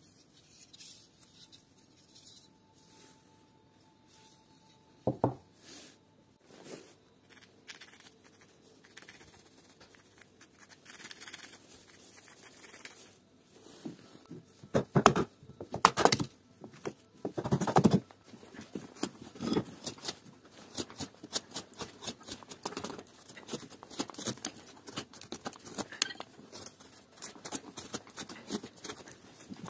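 Hand carving gouge paring into a block of wood, many short crisp scraping cuts in quick succession through the second half. Before that, a pencil scratching faintly on the wood and a few louder knocks.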